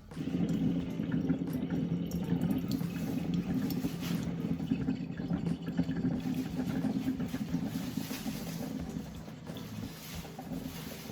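Liquid running steadily into a container. It starts suddenly and grows quieter near the end.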